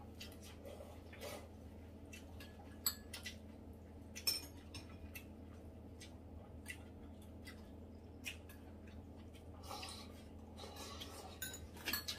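Faint clicks and clinks of chopsticks and spoons against ceramic bowls as two people eat, scattered irregularly over a low steady hum.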